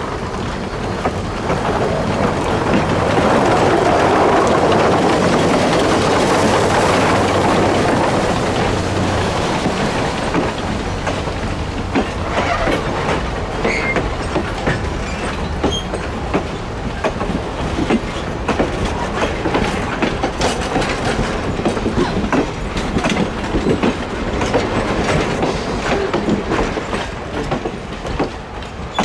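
Shay #5, a 1905 geared steam locomotive, passes close by, loudest a few seconds in. Its wooden passenger coaches follow, their wheels clicking over the rail joints as they roll past.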